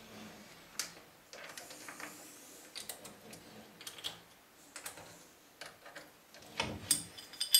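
Steel lathe parts being handled on the cross slide: scattered light metallic clicks and taps as the top slide's mounting plate is worked loose from its T-slot bolts and lifted off, with a louder ringing metal clink near the end.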